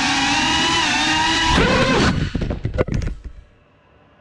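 GEPRC Cinelog 35 cinewhoop's brushless motors and propellers whining steadily in flight on 6S. About a second and a half in the pitch swoops up and down, then several sharp clattering knocks follow as the drone crashes. The motors cut out and the sound drops away to near quiet.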